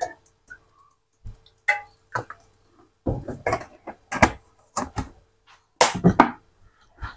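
Irregular short knocks and clatters of kitchen utensils and containers being handled, with brief quiet gaps between them.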